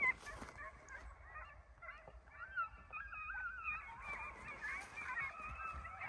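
A pack of hunting hounds baying in the distance on a deer's trail: many overlapping, wavering bawls, faint and continuous, with a low wind rumble under them.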